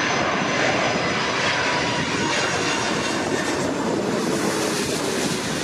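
Hawaiian Airlines jet airliner passing low overhead on its landing approach: loud, steady jet engine noise with a faint high whine, easing a little near the end.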